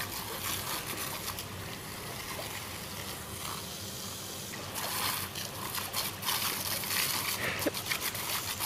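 A jet of water from a squirt gun hissing and splattering onto a dog and the grass, with the splattering getting busier and louder from about five seconds in.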